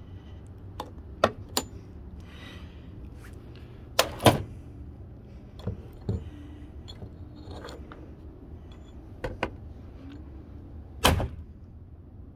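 Axe blows knocking against an old appliance: about ten sharp, irregular knocks, the loudest a quick pair about four seconds in and another single knock near the end.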